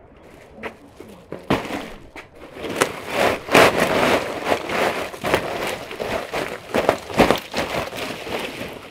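Pine cones and pine branches tipped out of a sack onto a concrete floor: a run of knocks and clatters with the rustle of the sack and needles, loudest in the middle.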